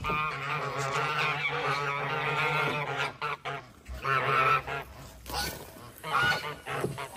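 Domestic geese honking loudly, an unbroken stretch of overlapping honks for nearly three seconds, then shorter bursts of honks, as the flock is chased to be caught.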